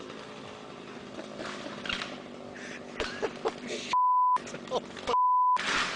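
Two censor bleeps: a steady 1 kHz beep about half a second long, heard twice about a second apart, with the audio cut to silence around each one. Each beep is louder than the faint outdoor background.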